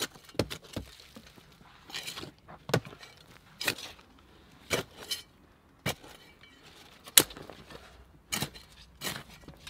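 Small short-handled spade chopping and scraping into earth, giving short, sharp metallic clinks about once a second.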